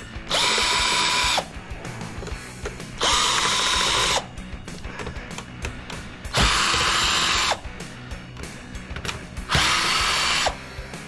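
Power drill-driver run in four short bursts of about a second each, backing screws out of an electronics casing.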